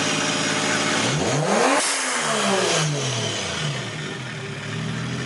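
Turbocharged 2JZ inline-six in a Nissan 350Z idling, revved once about a second in with a hiss at the top, then falling back to a steady idle.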